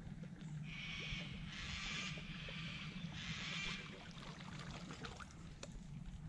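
A surface lure being retrieved across a still creek, heard as a few separate spells of swishing noise, each about a second long, in the first four seconds.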